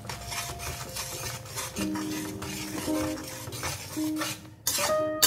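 Slotted metal spatula stirring soya chunks in oil in a steel pan, scraping and clinking against the pan's metal sides again and again.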